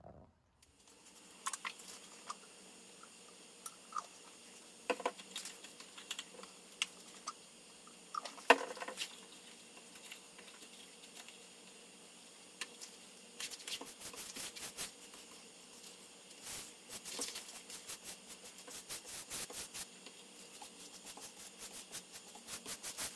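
Light handling sounds of varnish being mixed and brushed on: scattered clicks and taps, the loudest about eight seconds in, then a run of quick scratchy clicks from a paintbrush working in a plastic cup of thinned varnish and along the wooden table frame, over a faint steady hiss.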